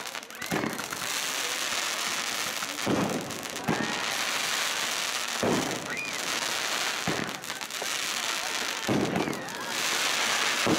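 Aerial fireworks display with continuous crackling stars, punctuated by about five louder bangs a few seconds apart and a few faint short rising whistles.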